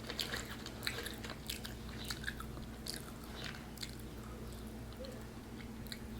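Close-up chewing and biting of crumb-crusted fried mozzarella onion rings: irregular wet crunches and mouth clicks, thinning out in the second half.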